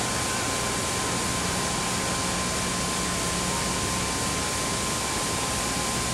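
Steady hiss of an old television broadcast soundtrack, with a thin constant tone and a low hum running through it.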